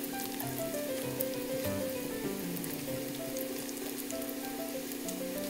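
Hot oil sizzling and crackling steadily around breadcrumb-coated SPAM and egg pieces deep-frying in a pan, over soft background music.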